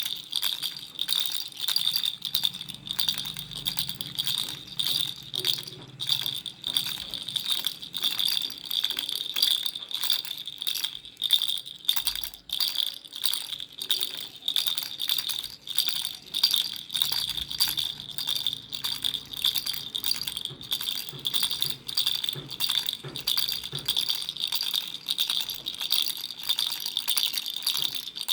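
Baby rattle shaken continuously in quick, irregular strokes, with a steady high ringing under the rattling.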